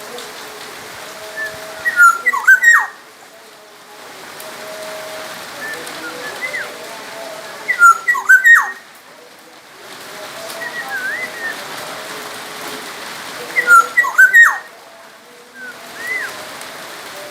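Black-naped oriole (kepodang emas) singing: three loud phrases of fluty whistled notes that slide downward, about six seconds apart, with softer single whistles in between over a steady background hiss.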